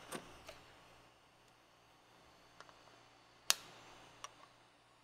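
Flush side cutters snipping the excess leads of newly soldered capacitors off a circuit board: one sharp snip about three and a half seconds in, a softer click just after, and a few faint clicks before.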